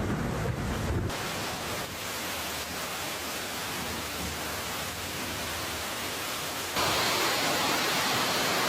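Steady, dense hiss of a heavy hailstorm downpour, with wind rumbling on the microphone for the first second. The sound changes abruptly about a second in and again near the end, where it becomes louder.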